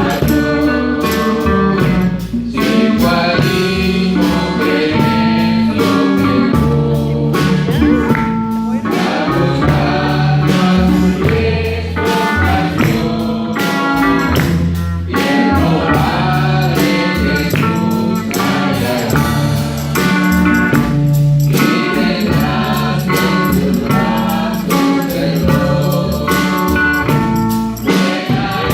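A church men's group singing a gospel hymn together, with instrumental accompaniment.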